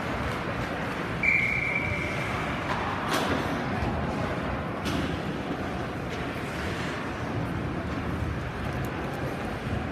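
A referee's whistle blowing one steady blast of about a second and a half over the constant noise of an ice rink, followed by a couple of sharp knocks.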